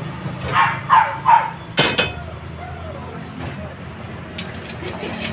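A dog barks three quick times, each bark falling in pitch, followed by a single sharp knock. A steady low hum runs underneath.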